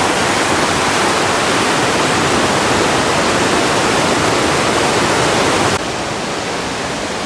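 Stream water rushing steadily just above a waterfall, a loud, even rush. About six seconds in, it drops suddenly to a softer, duller rush.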